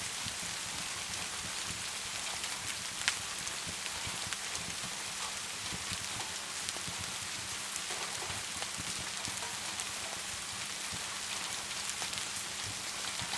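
Steady hiss of rain with scattered small crackles of a wood fire, and one sharper pop about three seconds in.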